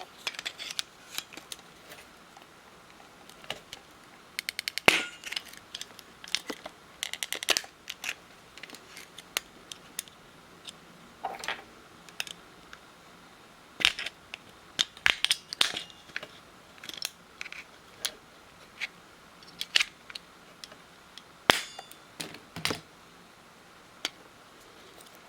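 Scattered clicks, taps and snaps of a spudger and hands prying the screen assembly off an iPhone 5-series handset, with a few sharper snaps as the display clips come loose.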